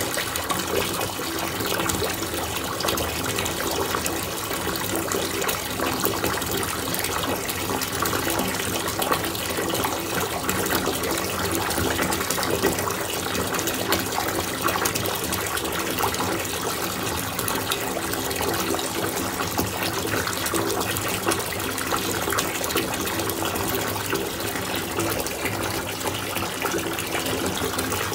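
Mother of Pearl bath bomb fizzing as it dissolves in bathwater: a steady crackling hiss of bubbles.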